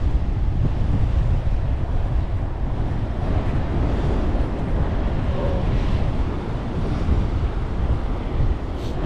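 Strong wind buffeting the microphone in a heavy, uneven rumble, with ocean surf washing on the beach behind it.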